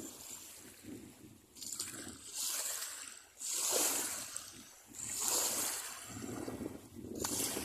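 Water splashing and trickling, coming in repeated surges of hiss a second or two apart.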